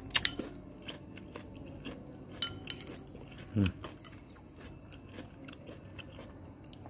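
Chewing with small crunches, mixed with a metal spoon clinking and scraping in a ceramic bowl as broth and pickled vegetables are scooped; the sharpest clink comes just after the start. A short falling 'mm' from the eater about three and a half seconds in.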